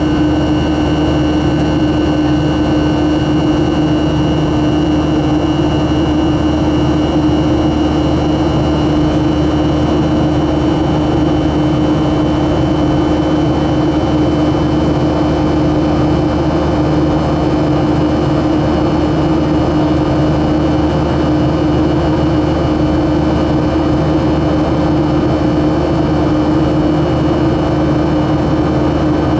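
Boeing 737-400's CFM56-3 turbofan engines running at high power as a steady, unchanging drone with a strong low hum and faint high whining tones, heard from inside the cabin after takeoff.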